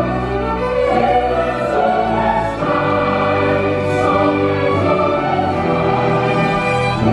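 Stage musical number: a cast of singers singing together live over an orchestral accompaniment, with long held notes.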